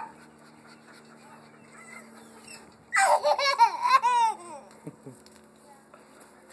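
A toddler girl laughing: a run of quick, high-pitched giggles about three seconds in, lasting around a second and a half.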